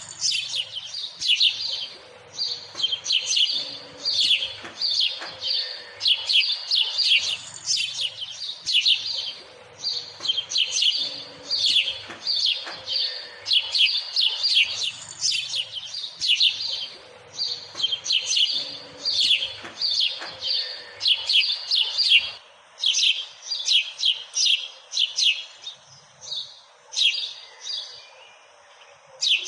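House sparrows chirping: rapid runs of short, high chirps in bouts a few seconds long, thinning to scattered chirps near the end.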